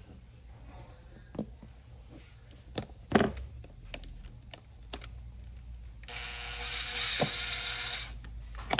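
Hands working a pulley, washer, screw and bungee cord into an exercise machine's track: scattered clicks and knocks of plastic and metal parts, the loudest about three seconds in, then about two seconds of harsh whirring, ratchet-like mechanical noise starting about six seconds in.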